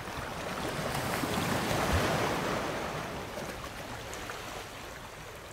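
Rushing wash of sea surf that swells about two seconds in and then slowly fades.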